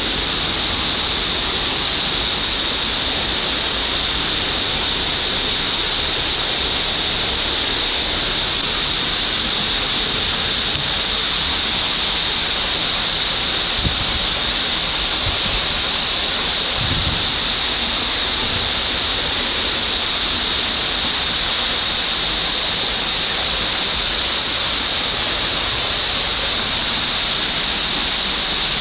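Loud, steady rush of water pouring and foaming into the start of a water slide, an even hiss that does not change.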